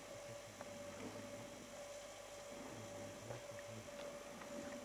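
Faint steady hum over a hiss, with a lower throb that comes and goes and a few soft ticks: a camcorder's own running noise.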